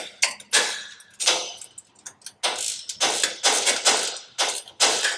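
A 1/2-inch wrench tightening a nut on a steel sign bracket: metal clicking and clinking in quick, irregular bursts of several clicks a second as the wrench is worked back and forth.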